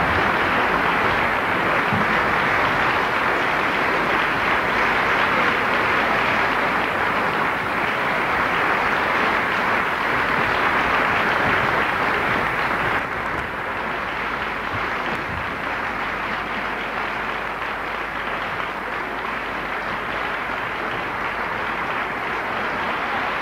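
Theatre audience applauding steadily at the final curtain of an opera. About halfway through the applause becomes slightly quieter and duller.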